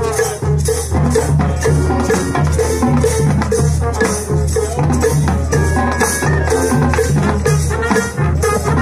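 High school marching band playing: brass over a steady beat from the percussion section, with strong bass notes and evenly spaced bright cymbal-like strokes.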